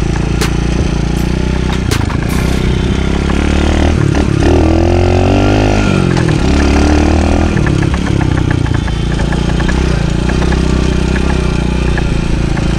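TaoTao DB14 110cc single-cylinder four-stroke dirt bike engine running under way. Its pitch rises and falls a few times around the middle as the throttle is worked.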